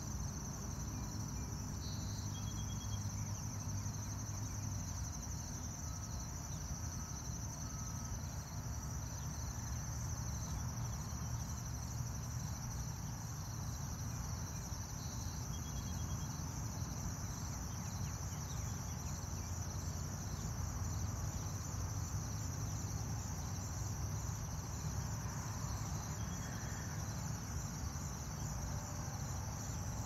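Steady chorus of insects singing in a high, finely pulsing trill, over a low background rumble. A few faint short chirps come through, about two seconds in, about halfway and near the end.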